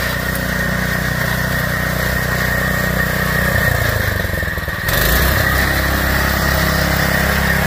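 Small single-cylinder engine on a lawn-tractor go-kart, a DuroMax 212cc, running steadily under load as the kart drives along. It gets louder about five seconds in.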